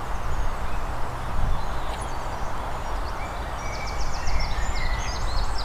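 Songbirds singing, with a quick run of short, high, repeated chirps from about three and a half seconds in, over a steady low rumble of wind on the microphone.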